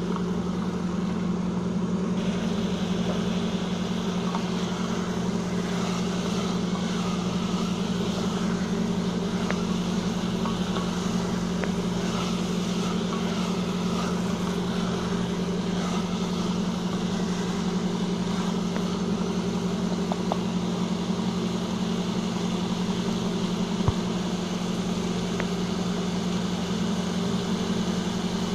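A steady, unchanging hum from some machine runs throughout, the loudest thing heard. Over it come a faint frying sizzle and a few light clicks of a wooden spatula against an aluminium pressure cooker as jackfruit pieces in masala are stirred.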